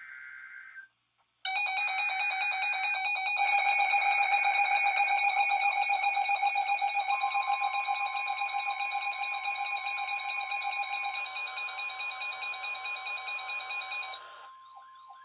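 Emergency Alert System signal on NOAA Weather Radio: a brief burst of buzzy digital data tones, then about a second and a half in a loud warbling electronic alarm lasting about twelve seconds. From about seven seconds a steady single warning tone sounds under it and continues alone near the end, announcing a new warning.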